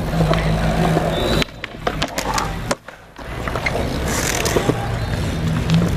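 Hard wheels rolling on skatepark concrete, with several sharp knocks a second or two in and a brief lull just after.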